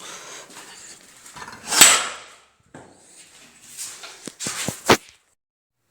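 Short household handling noises: a loud whoosh about two seconds in, then a few sharp clicks and knocks near the end.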